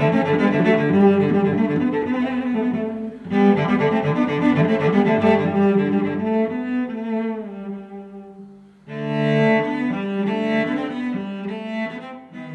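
Slow instrumental background music with held notes. It pauses briefly about three seconds in and again near nine seconds, then fades out at the end.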